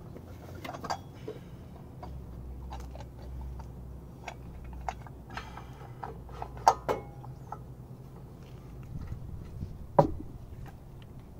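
Scattered light metallic clicks and knocks of hands fitting the torque converter's driver pulley and its bolt onto the engine crankshaft. The two sharpest knocks come a little past halfway and near the end.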